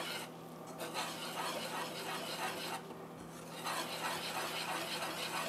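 Wire whisk stirring thick chocolate brownie batter in a saucepan: a rhythmic scraping and swishing against the pan as flour and cocoa are blended into the wet mixture, easing off briefly twice.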